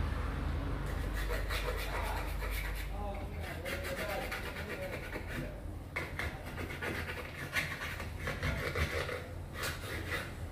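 A small hand tool scraping and rubbing against a phone's glass in short repeated strokes, over a steady low hum.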